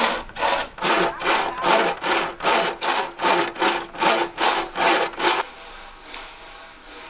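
A hand saw cutting through a fresh green bamboo stalk, with quick, even back-and-forth strokes, about two and a half a second, that stop about five and a half seconds in.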